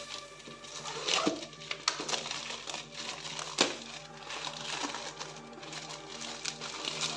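Plastic courier mailer being slit with a knife and torn open by hand, its plastic crinkling and ripping, with the sharpest crackles about a second in and near the middle. Soft steady background music underneath.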